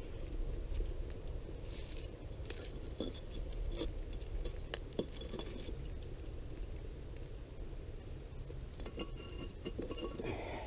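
Light clinks and knocks of metal being handled at a rocket stove, a few with a short ring, scattered over a steady low rumble.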